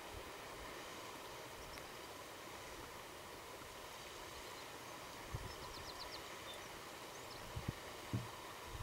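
Faint outdoor ambience: a steady even hiss, with a few soft low thumps in the second half and a brief quick run of faint high ticks about six seconds in.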